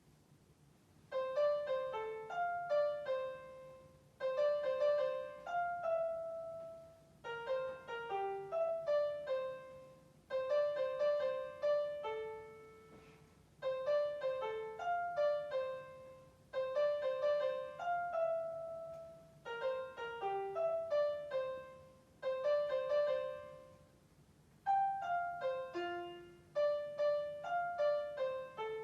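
Piano playing a simple melody in short phrases of a few notes, each about three seconds long and ending on a held note, with brief pauses between them. It is heard through a video call, with a faint steady hum underneath.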